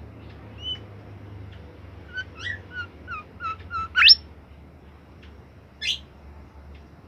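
Caged bimoli songbird singing: a short call, then a quick chattering run of chirps that ends in a loud, sharp upward note, and one more shrill call near the end.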